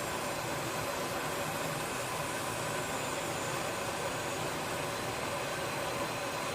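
Gas escaping from a kitchen gas supply with a steady, unbroken hiss.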